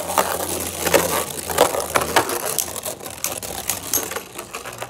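Two Beyblade Burst Turbo spinning tops, Emperor Forneus and Wonder Valtryek, whirring in a plastic stadium with a steady low hum. They clatter in a fast run of sharp clicks and clacks as they strike each other and the stadium wall, thickest in the first half and thinning out later.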